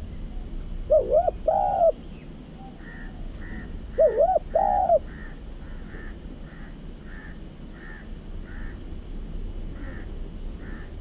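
Spotted dove cooing: two loud phrases of rising-and-falling coos, about three seconds apart. Behind them another bird gives a run of short, higher calls, about two a second.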